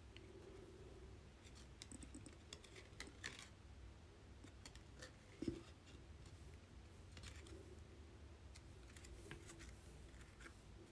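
Faint handling of trading cards: scattered light clicks and ticks as cards are moved and shuffled, with one soft knock about five and a half seconds in.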